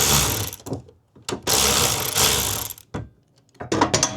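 Cordless power driver running in two bursts of about a second and a half each on the garage door roller bracket bolts, followed by a few short clicks near the end.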